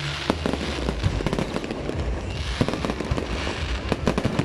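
Fireworks going off in quick succession: a steady run of bangs and crackles that crowd together about four seconds in.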